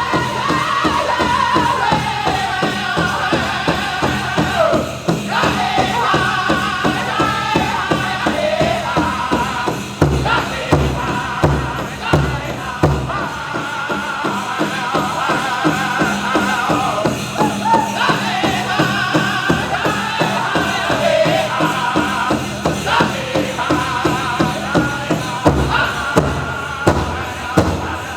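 Powwow drum group singing a chicken dance contest song: voices in unison, high and gliding, over a steady beat on a big drum. The drum strokes grow heavier about ten seconds in.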